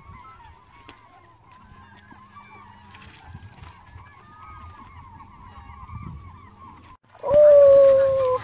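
A flock of seabirds, gulls, calling over and over in many short overlapping cries. About seven seconds in, a much louder drawn-out call holds for just over a second, dropping slightly in pitch.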